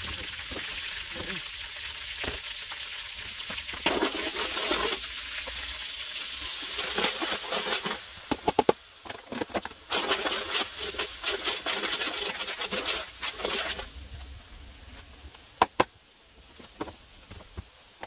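Oil and butter sizzling in a hot wok, with a utensil clicking against the pan as it is stirred. The sizzle swells about four seconds in and dies down near the end.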